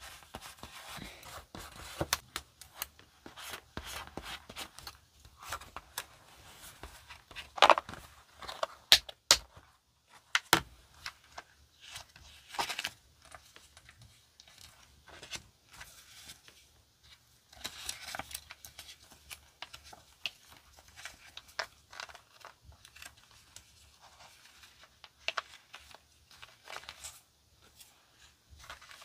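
Paper stickers handled with hands and tweezers: sticker paper rustling, peeling and crinkling, with scattered sharp clicks and taps. Two loud snaps stand out about a quarter of the way in.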